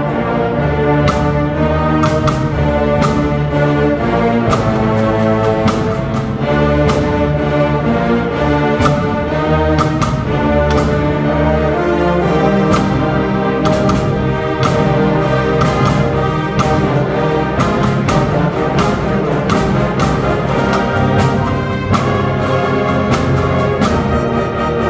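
A student symphonic wind band of clarinets, brass and percussion playing a piece together at full, steady volume, with regular percussion strokes about twice a second.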